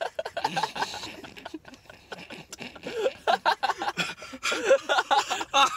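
Laughter: short, choppy bursts of laughing that grow louder over the last two seconds.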